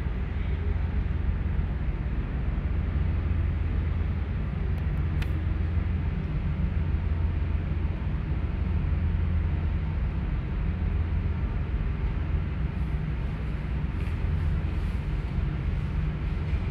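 Steady low outdoor rumble with no clear single source, and one faint click about five seconds in.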